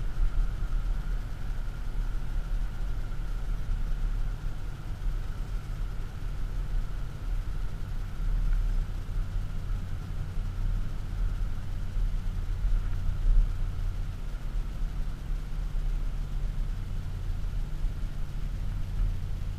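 Audi SQ7's 4.0 TDI V8 diesel and tyre noise heard inside the cabin: a steady low drone while the car slows from about 70 to under 40 km/h, with a faint steady whine above it.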